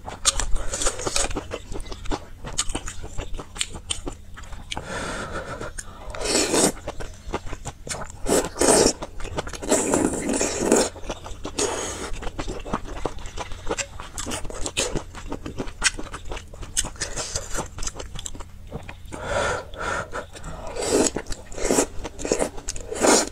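Close-miked eating of spicy red noodle stew: wet chewing and mouth clicks throughout, with several louder slurps of noodles and broth lasting a second or two each.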